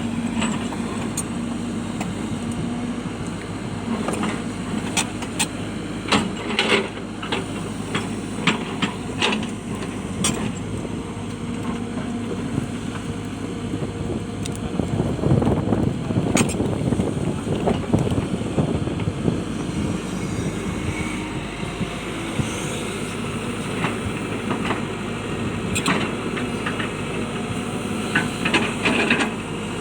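Hitachi excavator's diesel engine running steadily while its bucket works rock, giving irregular sharp clanks and knocks, with a louder rough stretch about halfway through.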